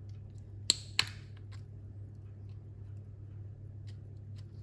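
Two sharp clicks about a third of a second apart, from the metal case of a vintage Bulova wristwatch being opened to reach its movement, with faint small ticks from handling afterwards.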